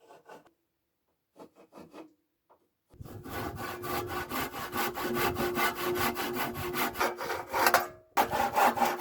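Handsaw cutting through a wooden facade board in quick, even back-and-forth strokes. It starts about three seconds in, stops briefly near the end, then carries on.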